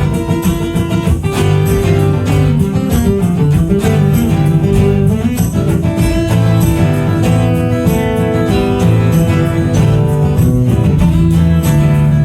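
Live band playing an instrumental break: acoustic guitar strumming chords under a lead melody that slides up and down in pitch.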